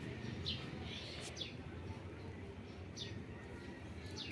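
Small birds chirping: a handful of short, high chirps, each sliding downward, at irregular intervals over a low, steady street rumble.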